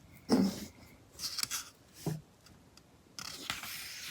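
Pages of a heavy-paper magazine being handled and turned: a few short rustles and swishes, then a steadier paper rustle from about three seconds in.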